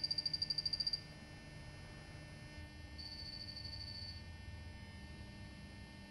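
Mica2 mote sounders giving high-pitched acoustic ranging beeps: a rapidly pulsed beep of about a second at the start, then a fainter steady beep of about a second some three seconds in. These are the acoustic time-of-flight pulses the actuating motes send alongside a radio message so the listening mote can work out its distance. A faint electrical hum runs underneath.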